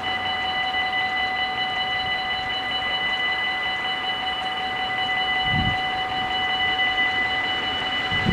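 Dutch automatic level-crossing warning bells ringing steadily, with a short low rumble near the end.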